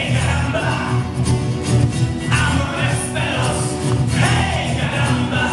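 Live pop-folk song: a male singer's amplified voice over a strummed acoustic guitar.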